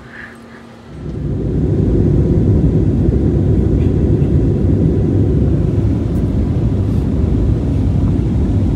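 Jet airliner cabin noise: a loud, steady low rumble of the engines and rushing air, heard from inside the cabin, which sets in about a second in.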